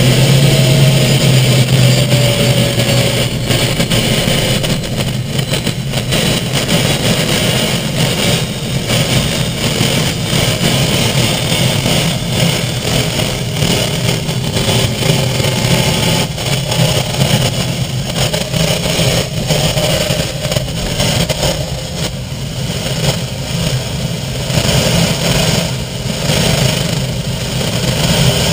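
Light training helicopter's engine and main rotor running steadily, heard from inside the cockpit, with a strong low drone and a regular pulsing beat.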